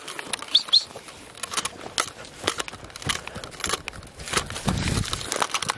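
Irregular crunching and crackling of footsteps through dry straw and leaf litter. Two short, rising bird chirps come about half a second in.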